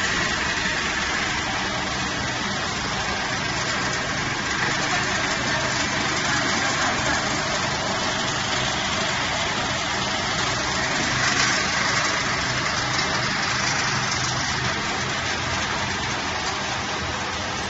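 TONY TYJ760 wood pellet machine running steadily as it presses sawdust into pellets: a continuous machine drone with a low hum under a broad grinding noise.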